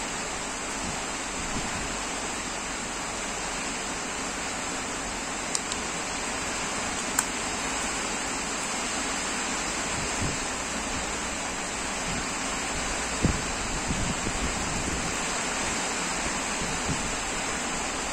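Steady hiss of background noise, with a few faint, isolated clicks and knocks from handling an old Ryobi 277 spinning fishing reel.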